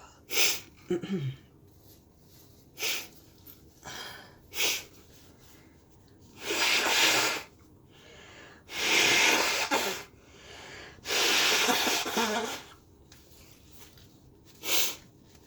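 A person with a heavy, stuffy head cold sneezing and sniffing in a series: several short sharp bursts, then three longer, loud, harsh sneezes about two seconds apart, and one more short burst near the end.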